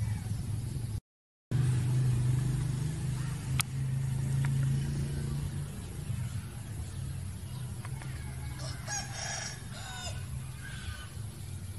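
A steady low hum, cut to silence for half a second about a second in. About eight and a half seconds in, a rooster crows once for about a second and a half.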